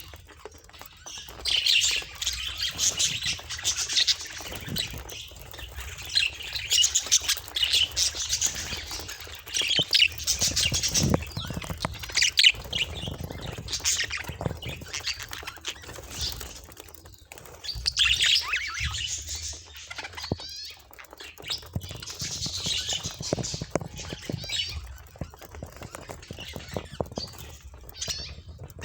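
Budgerigars chattering, in bursts of high chirps and squawks with short pauses between.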